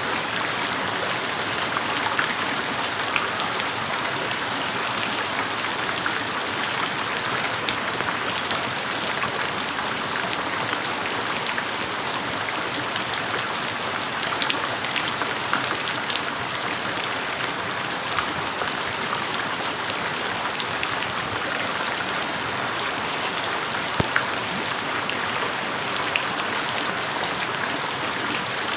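Steady rain falling, a constant hiss with scattered drop ticks.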